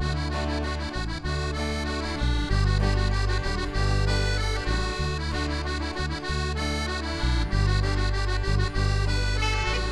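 Instrumental music: held notes over a bass line that changes every half second or so.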